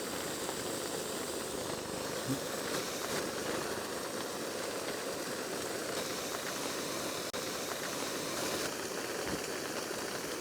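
Steady hiss of heavy rain falling on a tent.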